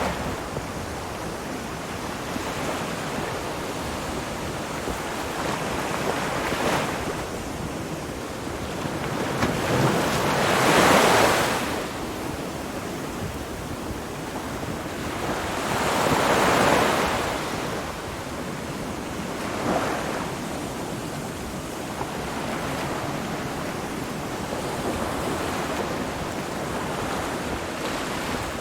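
Ocean surf: a steady wash of waves, with slow swells as waves come in, the two loudest about 11 and 16 seconds in.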